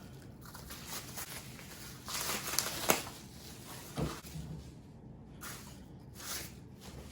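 Rustling and crinkling of plastic packaging as chair parts are unwrapped and handled, loudest about two to three seconds in with a few sharp crackles, and a dull knock about four seconds in.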